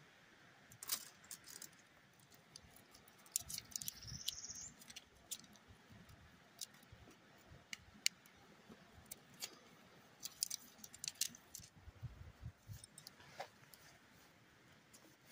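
Shock-corded tent pole sections being snapped together and their metal ends handled: scattered light clicks and clinks, with a couple of low rustles of handling.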